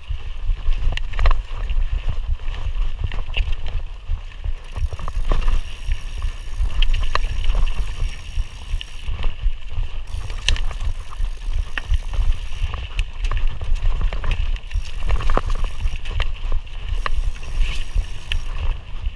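Mountain bike being ridden along a dirt trail: a steady rumble of wind and vibration on the microphone, with frequent clicks and rattles as the bike runs over the ground, and a faint high buzz that comes and goes several times.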